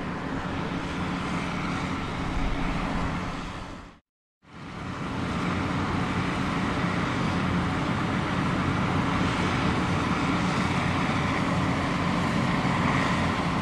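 Heavy diesel mining machinery running steadily, a low engine drone with a few constant low tones under broad noise. It drops out to silence for a moment about four seconds in, then fades back up and runs on.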